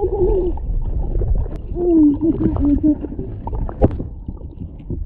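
Sound picked up by a camera held underwater in a river: a low rushing rumble of moving water, with muffled, indistinct voices coming through from above the surface. There is a sharp knock nearly four seconds in.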